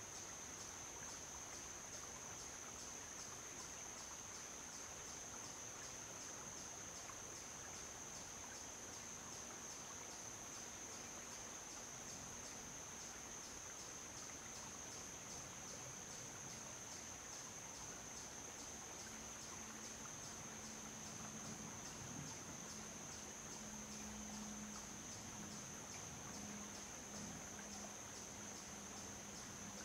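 A chorus of insects giving a steady, high, fast-pulsing trill in summer woodland. A faint low drone comes in about a third of the way through and grows stronger in the second half.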